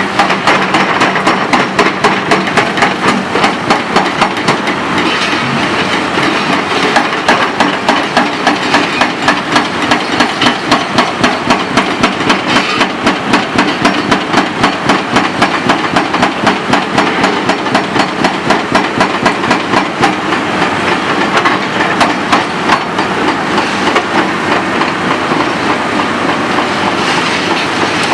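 Dehaco IBEX 4000GS hydraulic hammer on an excavator breaking concrete, a rapid, even, unbroken run of blows.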